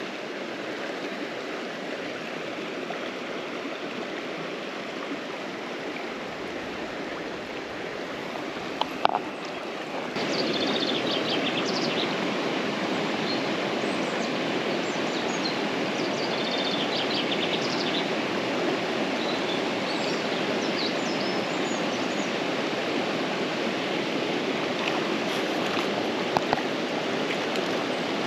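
Small river rushing over stones: a steady noise of flowing water that steps up louder about ten seconds in, with small birds chirping over it. A few sharp clicks stand out briefly.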